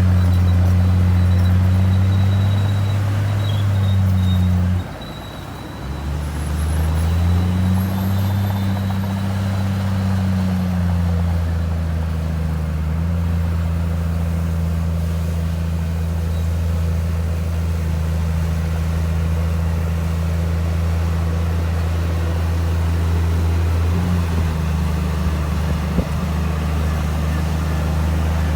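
Komatsu D58E1 bulldozer's diesel engine running under load. About five seconds in it drops in pitch and level, then revs back up and settles into a steady low drone.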